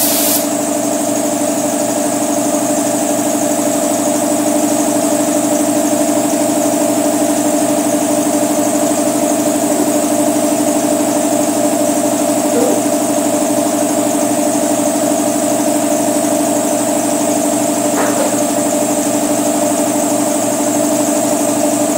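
An air compressor running steadily with an even, unchanging hum. A spray gun's hiss stops about half a second in.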